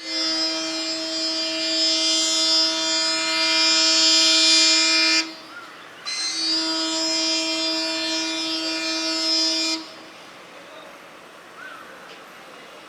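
ALCO WDM3D diesel locomotive's horn sounding two long blasts on one steady note, the first about five seconds and the second, after a short break, about three and a half seconds. The horn is not working correctly, giving a strange, funny-sounding honk.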